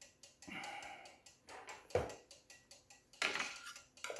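Cuckoo clock movement ticking quickly and evenly, about five ticks a second, under handling noises from the bellows being taken off: a rustle about half a second in, a sharp knock about two seconds in, and a scraping rustle just after three seconds.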